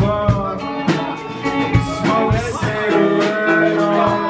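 Live rock band playing: electric guitars over a steady drum beat, with a singer at the microphone.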